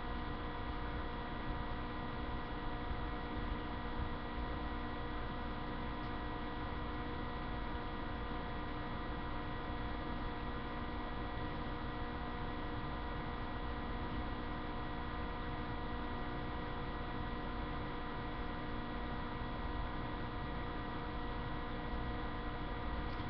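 Steady electrical hum made of several constant tones over a low rumble, unchanging throughout.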